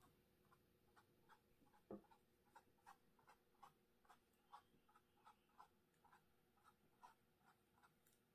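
Faint, quick dabs of a small paintbrush on a canvas print, soft ticks at about three a second, with one slightly louder knock about two seconds in.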